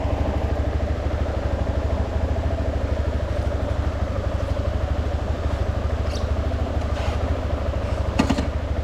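Yamaha Lander XTZ 250's single-cylinder four-stroke engine running steadily as the motorcycle is ridden along a dirt track, with a brief clatter a little after 8 s in.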